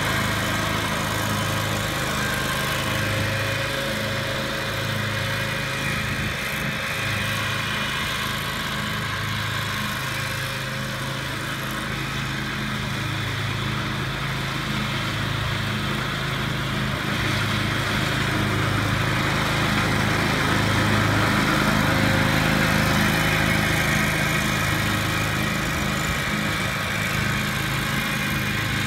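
John Deere 727 zero-turn riding mower's engine running steadily as the mower is driven across grass, getting a little louder about two-thirds of the way through.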